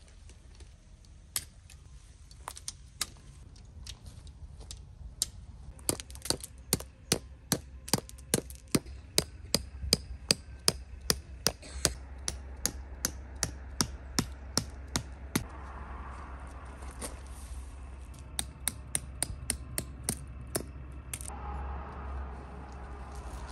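Hammer driving tent pegs into gravel ground: runs of sharp strikes about three a second, the loudest between about six and twelve seconds in, with a lighter run of strikes near the end.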